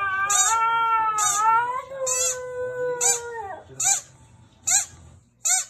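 Husky-Samoyed mix howling once, a long call of about three and a half seconds that rises slightly and then settles, set off by a squeaky dog toy. The toy is squeezed about once a second, and the squeaks go on after the howl stops.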